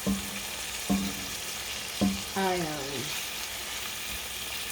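Steady frying sizzle from a cast iron frying pan on the stove, with a few short clicks and a brief falling hum from a voice about two and a half seconds in.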